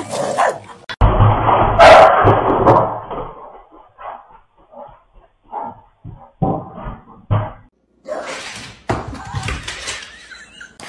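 A sudden loud bang about a second in, followed by a couple of seconds of clatter, then a string of short knocks and thumps.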